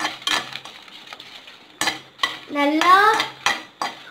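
Perforated steel spatula stirring dried red chillies in a steel kadai as they dry-roast: repeated metal-on-metal clanks and scrapes, with one squeaky scrape rising in pitch about two and a half seconds in.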